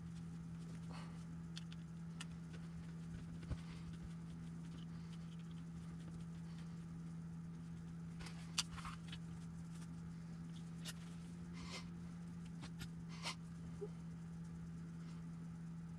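Scattered light clicks and taps of small RC truck drivetrain parts and tools being handled at a workbench, over a steady low hum.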